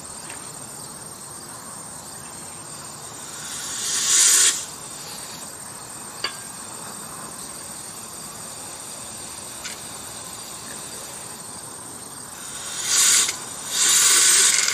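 Compressed air from an air-hose nozzle hissing into a homemade jet engine, spinning up its vacuum-cleaner impeller: a blast that swells and cuts off about four seconds in, a short one near the end, then a steady rush that carries on. Crickets chirr steadily behind, and there are two light clicks.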